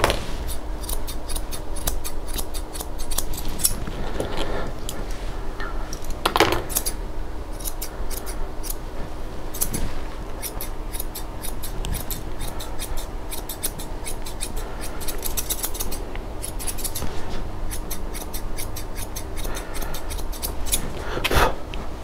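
Grooming shears snipping a Bichon Frise's head coat: runs of quick, crisp snips with short pauses between them.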